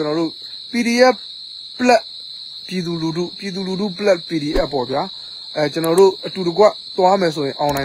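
A man talking in short bursts over a steady, high-pitched insect chorus that runs without a break.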